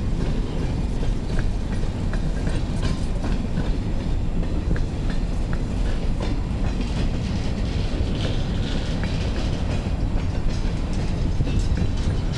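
Freight cars of a GEXR freight train rolling by, covered hoppers and then empty centerbeam flatcars: a steady rumble of wheels on rail with scattered clicks.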